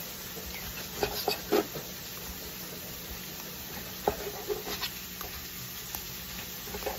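Chef's knife cutting through a grilled steak on a cutting board, with a few short clicks and scrapes of the knife and fork about a second in and again around four seconds in, over a steady faint hiss.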